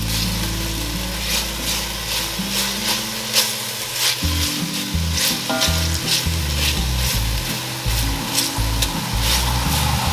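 Minced garlic and chunks of onion sizzling as they sauté in hot light olive oil in an enamelled Dutch oven. A silicone spatula stirs them, scraping against the pot again and again.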